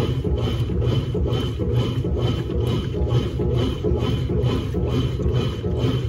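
Top-loading washing machine agitating a load of clothes in soapy water, with the churning and sloshing of the wash cycle pulsing in a steady, fast rhythm.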